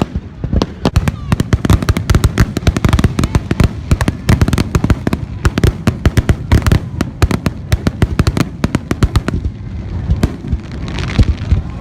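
Aerial fireworks going off in rapid succession: a dense, continuous run of sharp bangs and booms, several a second.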